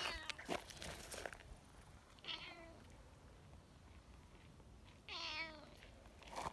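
Cat meowing three times in short calls that fall in pitch: one right at the start, one about two seconds in, and a longer, wavering one about five seconds in. A few short scuffing clicks come in the first second and a half.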